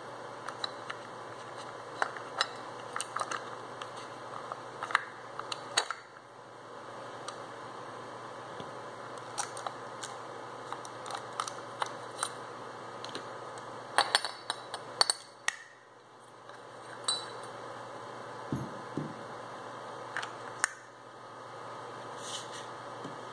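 Scattered clicks, taps and knocks of Mitsubishi M000T20873 starter-motor parts being handled and taken apart by hand: the aluminium drive-end housing, pinion clutch and plastic shift fork rattling against one another and the table, with a few duller thuds near the end. A steady hum sits underneath.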